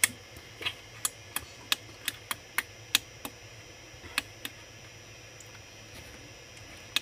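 Anet A8 3D printer's LCD menu controls being clicked to scroll through the menu: about a dozen sharp, irregular clicks over the first four seconds or so, then no more.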